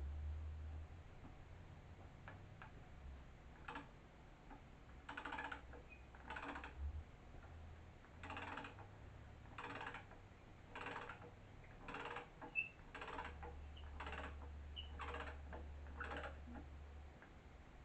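A screw being driven into wood by hand with a screwdriver: a short scraping creak with each turn, about one a second, some ten in a row starting about five seconds in, over a faint low hum.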